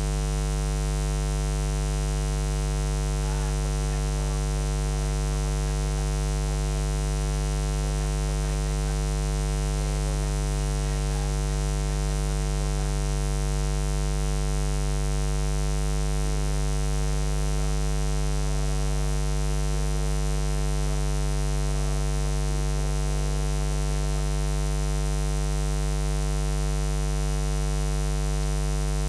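Steady electrical mains hum: a low buzz with a stack of overtones that does not change.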